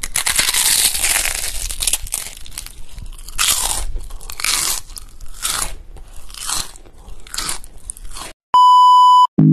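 Crunchy food being bitten and chewed close to the microphone: a long loud crunch, then crisp bites about once a second that grow fainter. Near the end a steady high beep sounds for under a second.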